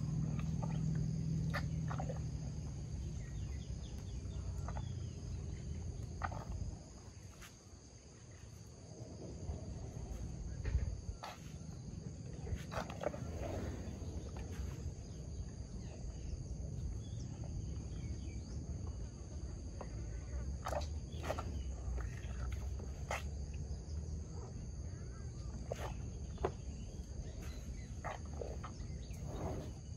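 Steady high-pitched drone of insects. Over roughly the first six seconds there is a louder low rumbling noise, and scattered soft clicks and knocks are spread through the rest.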